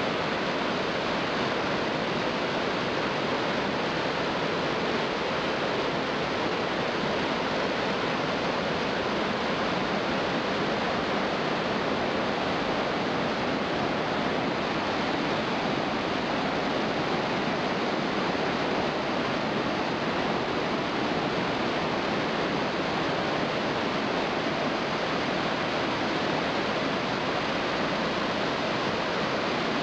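The cascades of Iguazu Falls pouring down close by: a steady, unbroken rush of falling water with no change in level.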